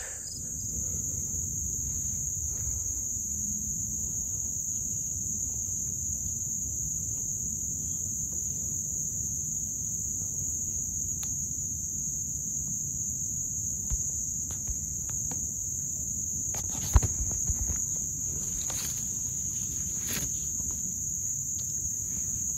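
Steady, high-pitched chorus of insects over the rustle of footsteps and brush as someone walks through woodland undergrowth, with a few sharp snaps and knocks, the loudest about seventeen seconds in.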